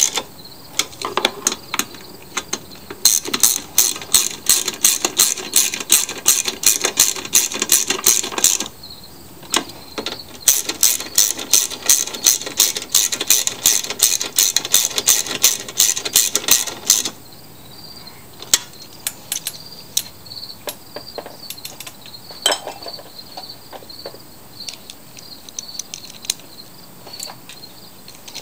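Ratchet socket wrench clicking in two long even runs of about three to four clicks a second, then a few scattered clicks, as the fuel tank bolts on a walk-behind mower engine are run down.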